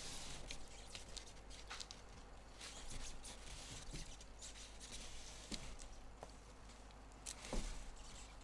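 Faint rustling with scattered small clicks and taps, and a slightly louder knock near the end.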